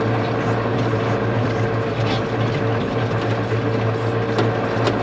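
Loader tractor's diesel engine running steadily with a constant low hum while the bucket levels snow, with a couple of short knocks near the end.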